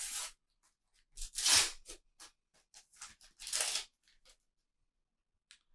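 A paper sticker packet being torn open by hand: three bursts of tearing, the second the loudest, with small crinkles between them.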